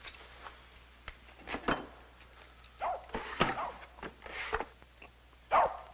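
A dog barking in a series of separate barks, about one every second.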